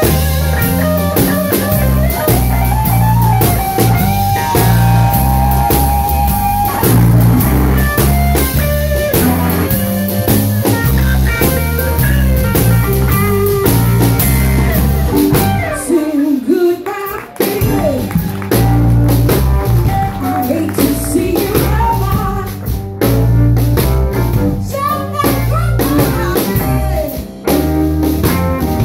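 Live electric blues band playing an instrumental section: an electric guitar solo with bent and held lead notes over bass guitar and drum kit. About halfway through the band drops out for a moment, then comes back in.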